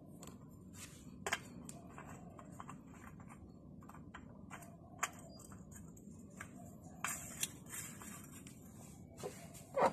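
A new spin-on oil filter being threaded onto a car engine's filter mount by hand: scattered small clicks, scrapes and rubs of hand and metal, with a few sharper clicks and a louder knock near the end.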